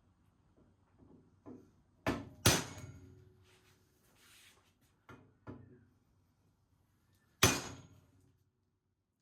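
Copper hide hammer striking a brass drift to drive a new steering-head bearing outer race into the dirt bike's frame: about six sharp metallic blows, irregularly spaced, the loudest about two and a half and seven and a half seconds in, each ringing briefly.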